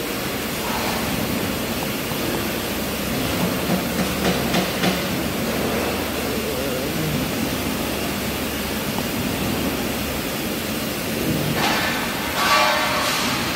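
Steady industrial noise of a production-line factory floor with machinery running, with a few short louder bursts about four seconds in and again near the end.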